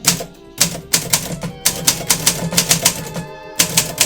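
1963 Olympia SM7 manual typewriter being typed on quickly, its typebars striking several times a second, with background music playing underneath.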